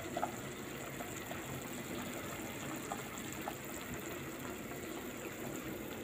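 Large pot of pasta at a rolling boil on a gas stove, a steady bubbling hiss, with a few faint light clicks.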